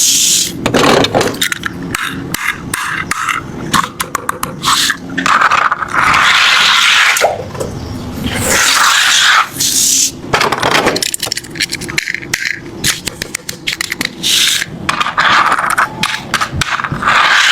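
Die-cast toy cars scraping and clattering, with many sharp clicks between longer hissing scrapes.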